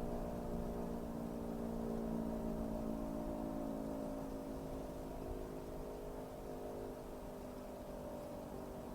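Sentry 3V8H electromechanical warning siren sounding a steady, held chord of tones during its test, gradually getting quieter.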